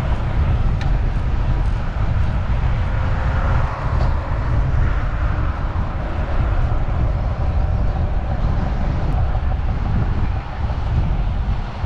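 Steady wind noise on the microphone of a bicycle ridden at speed, heaviest in the low end, with a steady rush of road noise and a few faint ticks.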